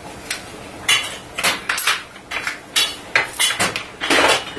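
Irregular clicks, knocks and rattles of hands handling computer hardware while plugging cables into a USB 3.0 SATA drive docking station, with a longer scrape near the end.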